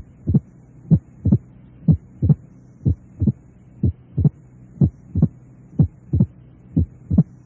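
Recorded heart sounds at about one beat a second, each beat a pair of short, sharp sounds. They demonstrate the mitral opening snap with an accentuated first heart sound, the auscultation signs of mitral stenosis. A low steady hum runs underneath.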